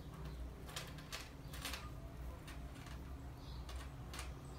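Light, irregular clicking of a 3 mm metal curb chain's links knocking together and against the needle as the chain is handled while being sewn on with yarn, about a dozen small clicks over a faint low hum.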